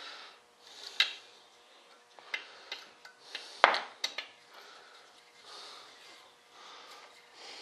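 Small hard parts being handled and sorted on a workbench: a string of sharp clicks and clinks, clustered in the middle with the loudest knock about three and a half seconds in, with soft rustling of things being moved between them.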